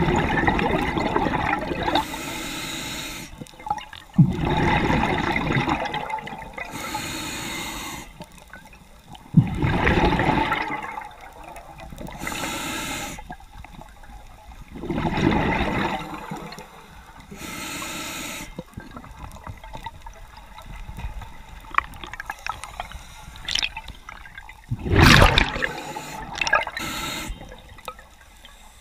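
Scuba diver breathing through a regulator underwater: a short hissing inhale, then a loud bubbling rush of exhaled air, repeated about every five seconds.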